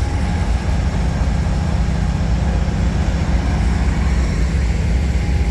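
Amtrak P42DC diesel-electric locomotive running close by, its diesel engine giving a steady, loud low rumble.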